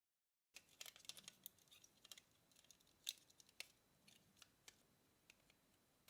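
After half a second of dead silence, faint scattered clicks and rustles of a small electronic device's plastic parts being handled and fitted together during reassembly, with one sharper click about three seconds in.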